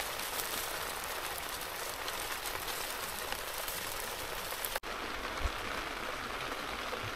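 Jumbo shimeji mushroom sizzling as it cooks: a steady hiss with fine crackles, cooking through to a shimeji steak. The sizzle cuts out for an instant about five seconds in and then carries on.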